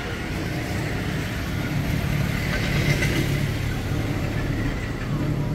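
Motor vehicle engine running close by, a steady low rumble, with traffic noise swelling to a peak about halfway through and easing off.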